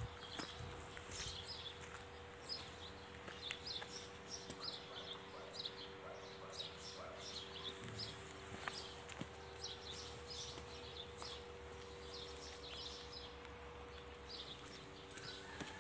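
Small birds chirping throughout, many short high chirps in quick runs, over a faint steady hum.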